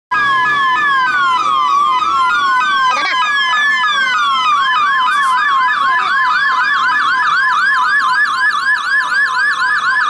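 Electronic sirens of police vehicles sounding together: a fast yelp of about four sweeps a second under a slower wail that rises and falls. About four and a half seconds in, the wail gives way and the fast yelp carries on alone.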